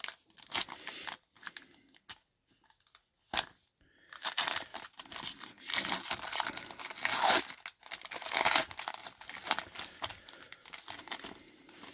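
Foil wrapper of a trading-card pack crinkling and tearing as it is opened by hand, in irregular bursts, busiest and loudest from about four seconds in.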